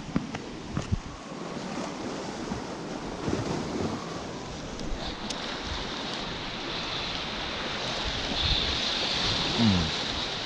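Sea waves washing against a rocky shore, with wind on the microphone. A few light clicks, and a short low falling sound near the end.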